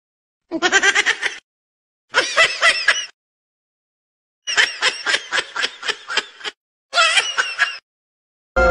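High-pitched giggling laughter in four short bursts of quick pulses, each burst cut off cleanly into silence. Music comes in just at the end.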